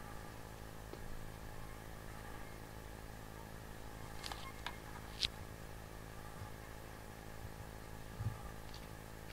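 Steady low background hum, with a few sharp clicks about four to five seconds in and a soft low thump near the end.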